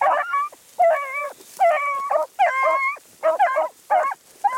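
Beagles baying while trailing a rabbit: a quick run of about nine or ten loud bays, some short and some drawn out.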